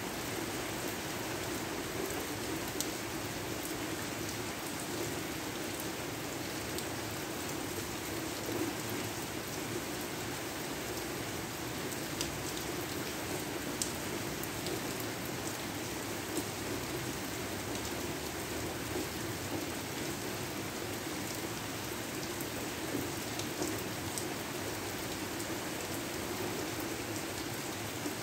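Steady rain falling, an even hiss with scattered louder individual drops.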